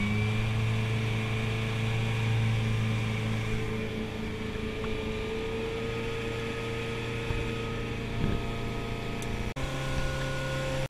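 Bayliner motorboat's engine running steadily under way, a low, even hum. About nine and a half seconds in the sound briefly drops out and the engine comes back at a slightly higher pitch.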